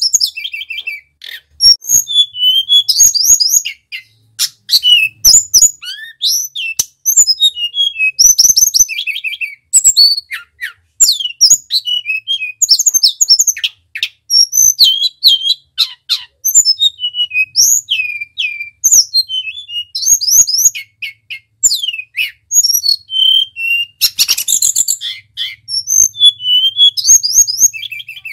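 Male hill blue flycatcher (tledekan) singing a rapid, varied song of high whistles and chirping trills in short phrases with brief gaps, one dense loud burst near the end. Scattered sharp clicks are heard among the notes.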